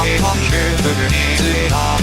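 Loud rock-style song music from an UTAU vocal-synth cover, with a dense band mix of bass and melody lines.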